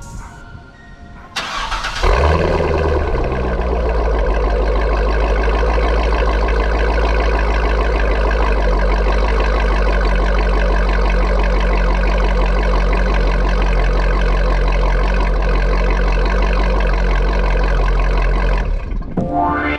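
C6 Corvette V8 engine starting with a brief crank about a second in, catching with a flare of revs, then settling into a steady idle that cuts off near the end.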